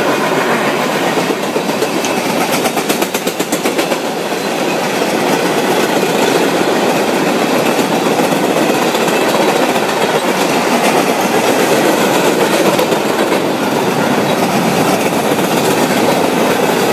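Freight cars of a long CN freight train rolling past with a steady, loud rumble of wheels on rail. A quick run of clicks comes about two to four seconds in.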